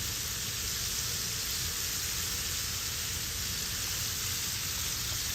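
Battered fish deep-frying in hot oil, a steady, even sizzle.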